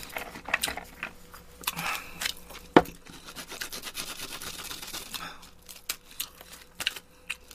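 Chopsticks clicking and scraping against takeout food containers and a small sauce cup, with a stretch of scraping and rustling in the middle and one sharper click just before it.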